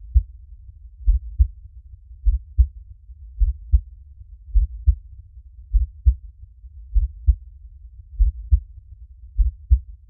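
Human heartbeat, slow and steady: deep double thumps (lub-dub) repeating about every 1.2 seconds, some fifty beats a minute, over a faint low rumble.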